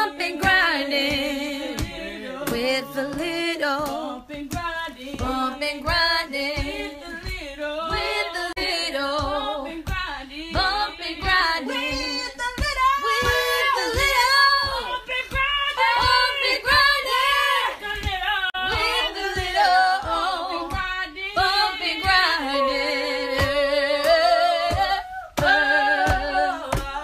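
Several women singing together a cappella, with short regular knocks running under the singing.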